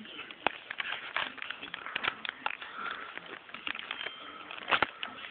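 Handling noise from a camera held close to its microphone: irregular clicks, taps and rustles, the sharpest about half a second in and near the end, as the camera is grabbed or moved and its lens covered.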